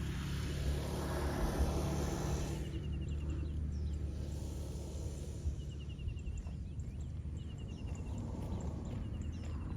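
Small birds calling: short rapid trills repeated every second or two, with brief falling chirps, over a steady low rumble.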